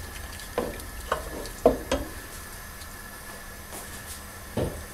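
Wooden spoon stirring a stew in a stone-coated cooking pot, knocking against the pot four times in the first two seconds and once more near the end.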